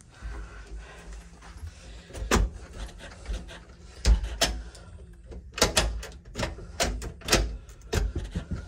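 A string of sharp clicks and knocks over low thumps, more than a dozen spread through the last several seconds: doors being opened, shut and bumped.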